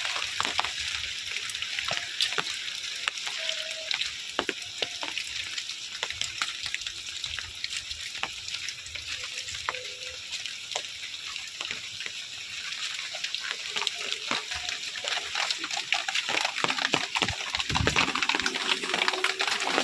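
Steady rain, a constant hiss with many sharp drop ticks pattering on nearby surfaces.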